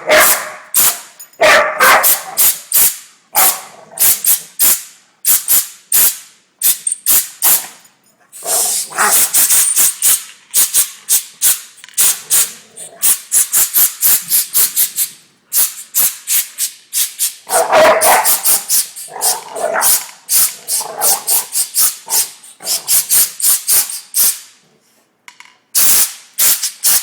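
A year-old pit bull barking again and again while short blasts of air from an air gun hiss in quick succession, the dog snapping at the air.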